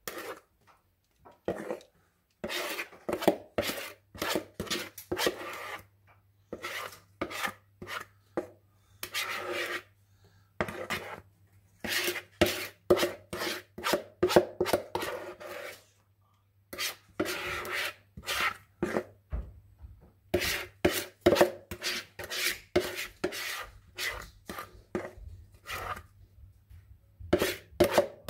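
Spatula scraping cake batter out of a mixing bowl: quick repeated rasping strokes in runs, with short pauses between them.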